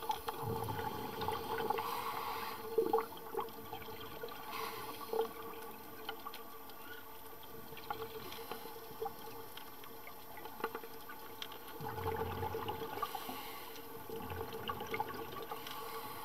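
Underwater sound of scuba divers breathing through regulators, with exhaled bubbles rising in two soft swells, plus scattered small clicks over a steady faint hum.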